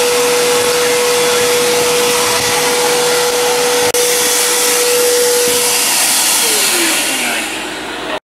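Vacuum cleaner running as its wand sucks up dead bugs from a tile floor: a steady rush of air with a constant whine. There is a brief dropout about four seconds in, and near the end the whine slides down in pitch.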